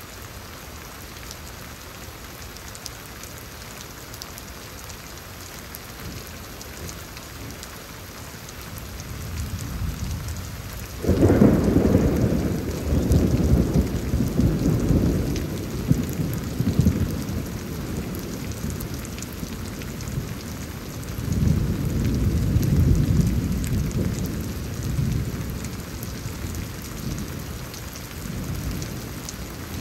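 Thunder during a rainstorm, over steady rain. A low rumble builds, then a loud crash of thunder breaks about a third of the way in and rumbles on for several seconds. A second, softer swell of rumbling comes a few seconds later.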